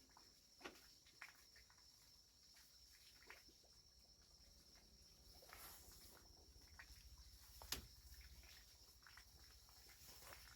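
Near silence: faint ambience with a steady high-pitched whine, scattered soft clicks and taps, and one sharper click about three-quarters of the way through.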